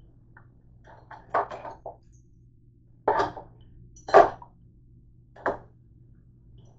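Handling knocks and clatters: a short cluster about a second and a half in, then single knocks at about three, four and five and a half seconds, over a steady low hum.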